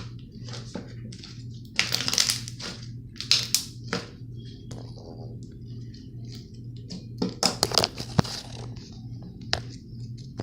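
Slime being squeezed and pressed by hand, making irregular crackling and popping sounds, with louder clusters of crackles about two, three and a half and eight seconds in.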